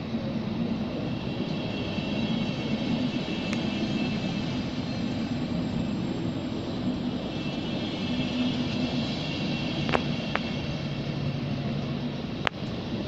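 A train running in the station: a steady mechanical hum and rumble, with a few sharp clicks.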